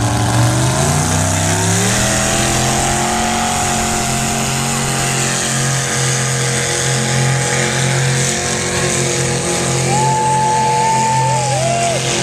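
Mini modified pulling tractor's engine revving up over the first two seconds, then held at high, pretty steady revs as it drags the weight sled down the track. A higher whine joins about ten seconds in, with a couple of short rising-and-falling glides near the end.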